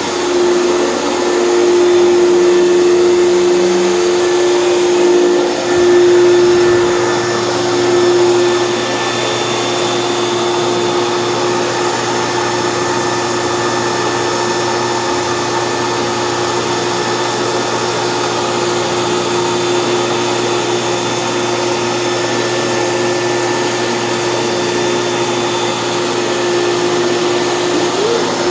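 Hoover canister vacuum cleaner running with a motorized power nozzle: a steady motor whine. It swells and dips for the first several seconds, then holds even.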